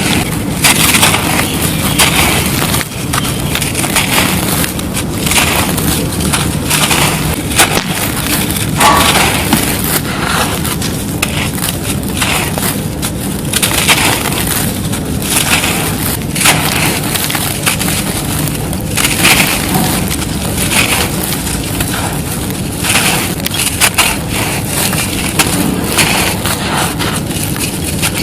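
Dry, dusty white concrete being crushed and crumbled, a run of irregular crisp crunches about one every second or so.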